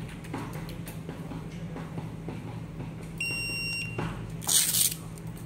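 A wearable ring barcode scanner gives a single short electronic beep about three seconds in, the tone a scanner sounds on a successful read. About a second later comes a brief, louder scuffing noise.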